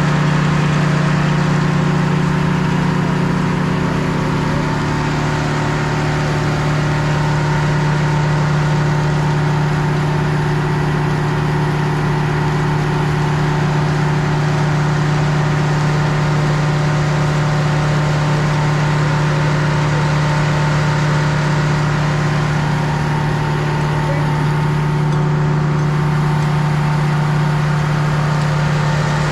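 A sawmill's engine running steadily at working speed with a constant hum, as the mill saws through a log. It runs on without a pause.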